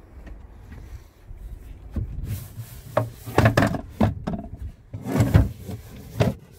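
Knocks and scuffs from a boat's vinyl rear seat cushion being gripped and lifted off its base, in several clusters, the loudest a little past three seconds in and about five seconds in.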